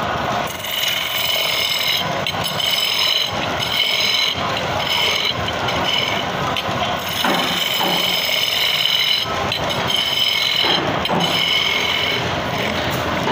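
Woodworking power tool cutting wood: a steady noisy run with a high-pitched squeal that comes and goes every second or so.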